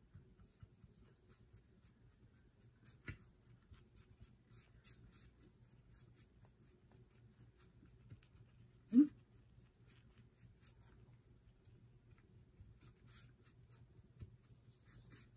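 Foam sponge brush stroking back and forth over a metal tray: faint, soft scratchy brushing. A sharp tap comes about three seconds in, and about nine seconds in there is one short, loud squeak that rises in pitch.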